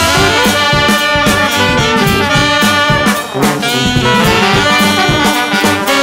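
Jazz-blues backing music with a steady drum beat.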